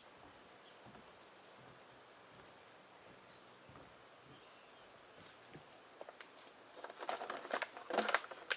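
Quiet outdoor background with a faint, thin high tone. About six seconds in, a run of rustling and clicking handling noises starts and grows louder toward the end.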